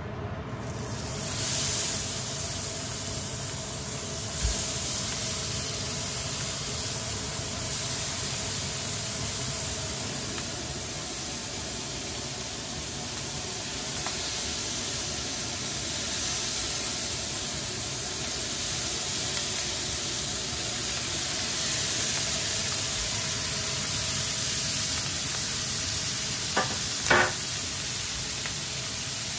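Head-on shrimp in olive oil sizzling steadily on a smoking-hot flat griddle pan, the sizzle rising about a second in as they go onto the hot metal. A few brief knocks and clicks come in along the way.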